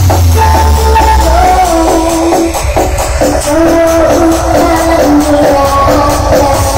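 Loud music played through a huge outdoor "sound horeg" sound system, with heavy bass under a wavering melody line.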